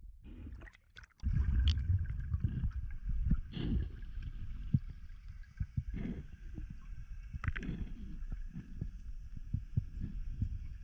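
Muffled underwater sound from a camera in its housing during a freedive: a low rumble of moving water with irregular knocks and thumps, setting in suddenly about a second in.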